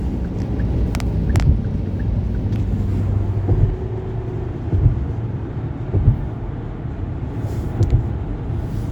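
Road noise inside a moving car's cabin: a steady low rumble of tyres and engine, with a couple of sharp clicks about a second in and a few dull bumps later on.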